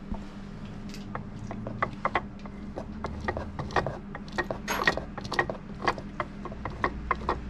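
Damaged Toyota Land Cruiser 80 series diff centre with broken ring gear and pinion teeth being turned over by hand: irregular metallic clicks and clunks, a few a second, the loudest about five seconds in, over a steady low hum.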